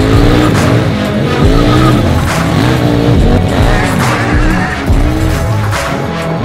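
KTM Duke twin-cylinder motorcycle revving up and down again and again as it drifts, its rear tyre hissing and squealing in short bursts on the asphalt, over background music.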